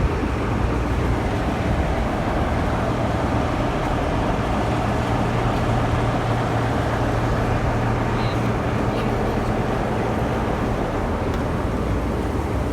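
Diesel locomotive engine idling: a steady low drone with a constant hum.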